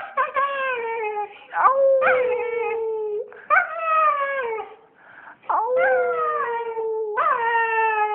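Siberian husky howling: about five drawn-out howls in a row, each starting with a quick upward yelp and then held, sagging slightly in pitch.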